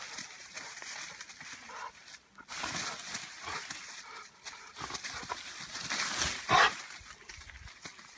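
American bulldog tugging at a leafy branch: leaves and twigs rustling and shaking, with the dog growling as it pulls. The loudest burst comes about six and a half seconds in.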